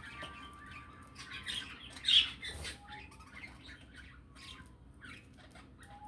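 Budgerigars chirping and chattering, with short whistled notes and a loud squawk about two seconds in.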